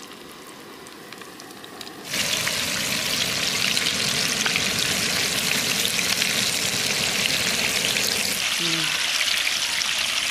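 Coated chicken lollipops deep-frying in hot oil in a large kadai, a steady crackling sizzle that jumps much louder about two seconds in.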